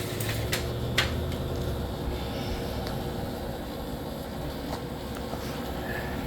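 1999 Whirlpool 12,000 BTU window air conditioner running with its compressor on and the fan on low: a steady hum and rush of air, with a couple of sharp clicks about a second in.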